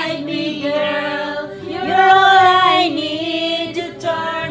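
A woman singing karaoke into a handheld microphone over a backing track, holding long sung notes.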